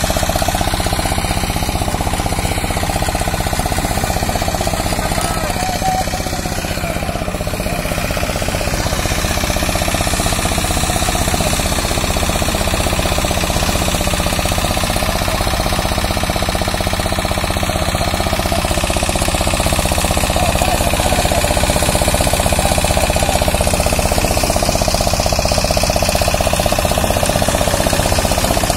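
Fishing boat's diesel outboard engine running at idle with a fast, even knocking beat, over the wash of breaking surf.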